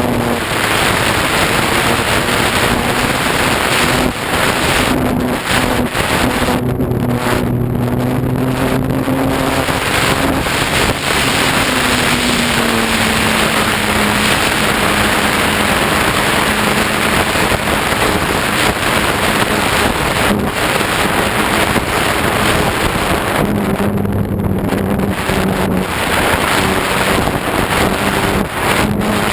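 Onboard sound of a ParkZone Radian electric RC glider in flight: loud rushing wind over the microphone, with the electric motor and propeller humming at a steady pitch. The hum slides lower about a third of the way in, fades out for several seconds while the plane glides, and comes back near the end.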